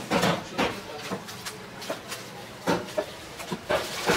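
A butcher's heavy broad-bladed knife chopping beef on a round wooden chopping block: a handful of sharp, irregularly spaced thuds.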